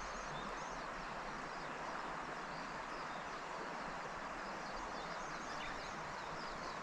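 Steady rush of river water, with small birds chirping over it many times.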